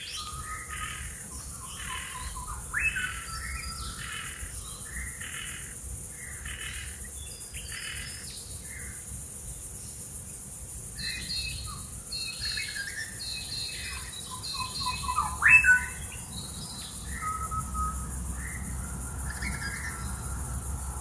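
Several birds chirping and calling in quick succession, the loudest a sharp rising call about three-quarters of the way through, over a steady high-pitched insect hiss.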